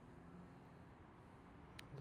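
Near silence: a faint low background hum, with one short click near the end.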